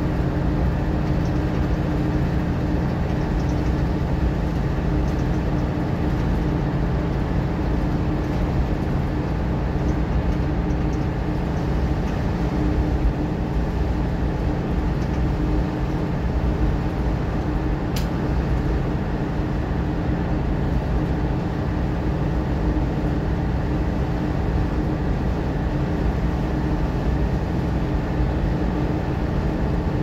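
Mercedes-Benz Citaro O530 bus at a steady cruise: an even engine drone with road noise, heard from inside the cabin, with a single sharp tick about 18 seconds in.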